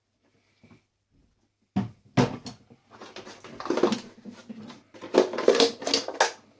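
Parts of a coffee maker being handled and pulled apart: a few sharp knocks about two seconds in, then several seconds of rattling and clattering of hard plastic and metal pieces.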